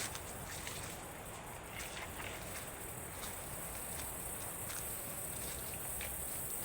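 Steady rushing of a waterfall, with a constant high insect drone above it and scattered light clicks and crackles.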